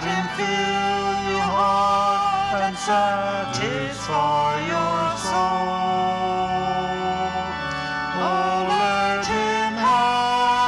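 A woman and a man singing a hymn together as a duet. They move through sustained notes and hold one long note near the middle.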